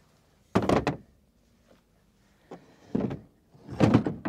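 Three short bouts of handling noise, knocks and rattles, one about half a second in and two close together near the end.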